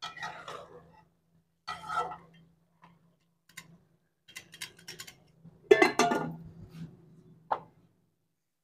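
Metal cookware clatter: a long spoon clinking and scraping against a steel cooking pot. About six seconds in comes a loud clank with a short ring as the metal lid is set on the pot, and a lighter clink follows near the end. A low steady hum runs underneath.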